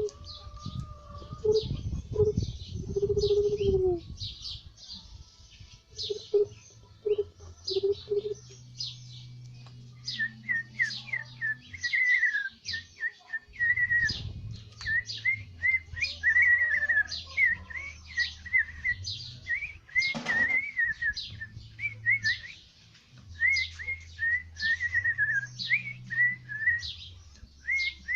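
Bird calls imitated by whistling: many short, high chirps throughout. About ten seconds in, a quick run of lower, curving whistled chirps joins them. Lower, cooing-like notes come near the start.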